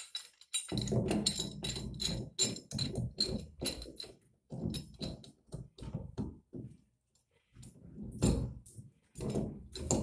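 Pipe wrench working a plastic tank connector fitting on a plastic water tank: an uneven series of scrapes, clicks and knocks as the jaws grip, turn and reset, with heavier dull thuds about a second in and again near the end.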